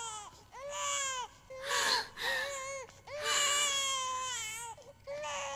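Newborn baby crying: a string of about five wavering wails, one after another with short breaths between them. These are a newborn's cries just after birth.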